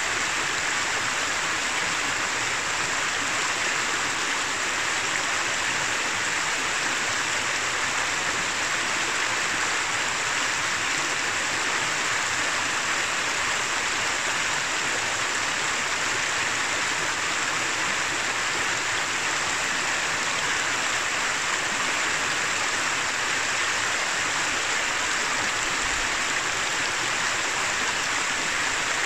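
Shallow mountain river rushing and babbling over stones, a steady, even flow.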